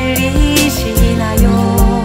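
Korean pop ballad song: a steady drum beat with bass and sustained backing tones, and a sung note held with vibrato in the first half.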